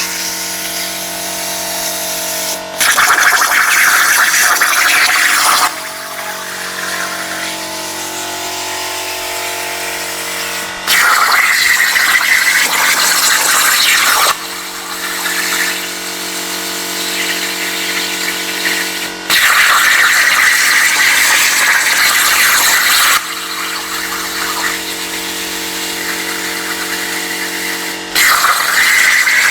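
CNC plasma cutter with torch height control, its arc firing in four cuts of about three to four seconds each, a loud hiss. Between the cuts a quieter, steady machine hum with several tones carries on.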